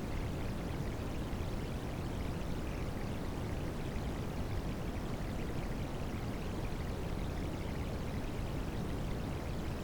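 Steady rain sounds, an even rushing water noise that is deep and full and softer in the highs, with no breaks or changes.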